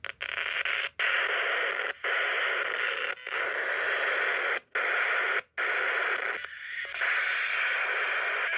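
Small home-built FM radio kit hissing with static through its little speaker, no station coming through. The hiss cuts out briefly about five times.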